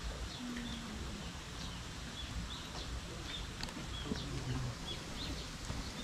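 Many small birds chirping, with short high calls repeating several times a second, over a steady low background hiss.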